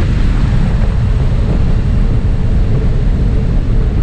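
Small jump plane's engine running steadily, mixed with the rush of wind through the open side door, heard from inside the cabin as a loud, even noise with a faint steady hum under it.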